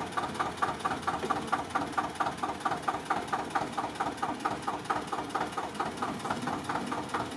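Tractor engine idling, with a steady beat of about five pulses a second.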